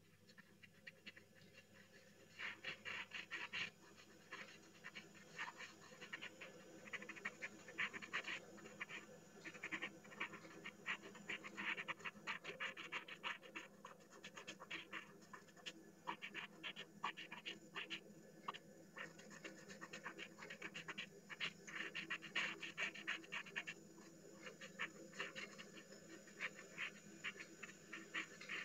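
Cotton bud rubbing pencil graphite on paper in quick, short back-and-forth strokes, blending the shading; a faint scratchy rubbing that comes in runs from about two seconds in.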